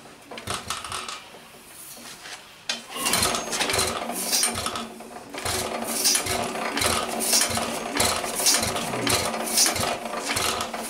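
1913 Stickney 1 3/4 HP hit-and-miss engine being turned over by hand at the flywheel. After a few light clicks, from about three seconds in its gears and valve gear clank rhythmically, about twice a second, with a low puff under each stroke. The engine does not catch, which the men take for a flooded engine.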